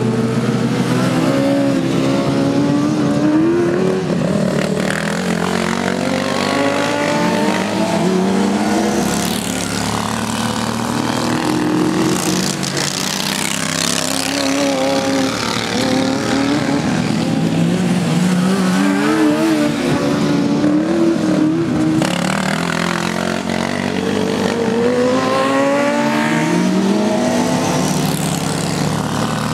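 Several racing ride-on lawn mower engines revving and passing, their pitch rising and falling again and again as they accelerate and slow through the turns.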